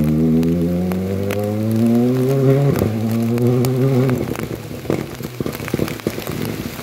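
Rally car engine accelerating hard away up a gravel stage, its pitch climbing through a gear, dropping briefly at a shift near three seconds, then climbing again before fading out about four seconds in. Heavy rain is then heard falling, with scattered ticks of drops.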